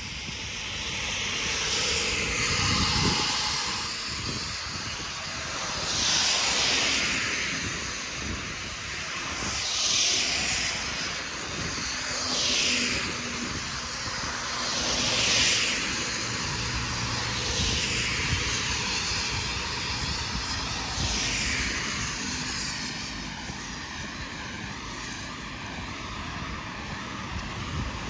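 Steady rushing vehicle noise that swells and fades again and again, roughly every three seconds, with a faint low engine hum in the middle.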